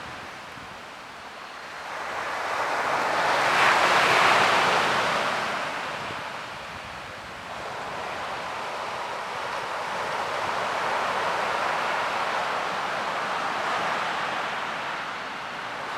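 Ocean waves breaking and washing ashore, one big surge swelling to a peak about four seconds in, then a quieter steady wash, with some wind on the microphone.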